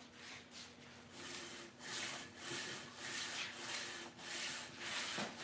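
Abrasive sanding strokes worked back and forth by hand across an LS cylinder head's face to clean off old gasket residue, about two strokes a second, starting about a second in.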